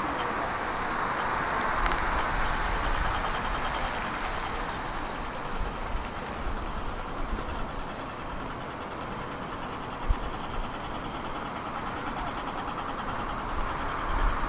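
Steady rushing noise of passing vehicles in a city street, swelling and easing slowly, with one short sharp tick about ten seconds in.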